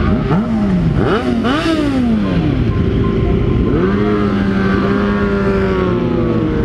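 Sport-bike engines revving: several quick throttle blips rise and fall in pitch over the first couple of seconds, then an engine holds a steady note from about four seconds in, over a constant low rumble.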